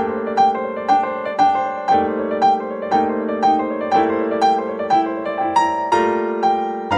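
Calm piano music: single notes struck about twice a second over held chords.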